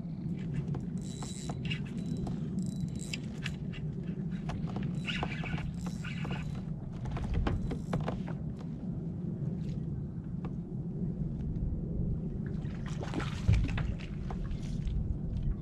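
A steady low rumble with scattered clicks and knocks and a few brief hissing bursts.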